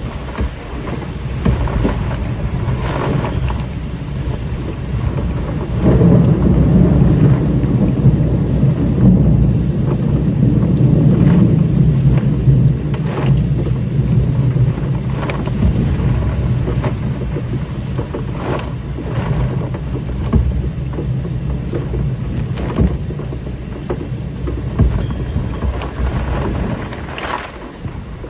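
Thunderstorm: a long rolling rumble of thunder over steady rain, swelling about six seconds in and easing off toward the end, with short sharp cracks every few seconds.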